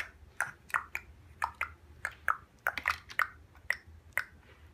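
Large plastic Mega Bloks building blocks clacking against each other as they are handled and stacked: about a dozen sharp clicks at irregular spacing.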